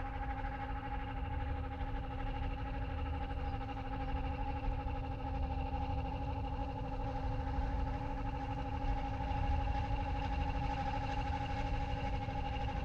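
Vintage electric rack-railway train climbing, its motors giving a steady whine made of several held tones over a low rumble.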